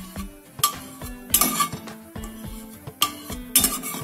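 A spatula scraping and clinking against a steel kadhai in irregular strokes while stirring, over background music.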